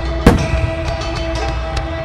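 Music with sustained tones and a drum beat, cut across about a quarter second in by one sharp, loud boom of a firework shell bursting.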